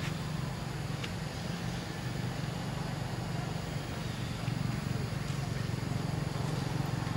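Steady low hum of an engine running in the background, over a faint even hiss, with no change throughout.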